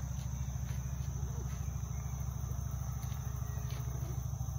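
A steady, high-pitched chorus of insects, heard over a low rumble on the microphone, with a few faint clicks.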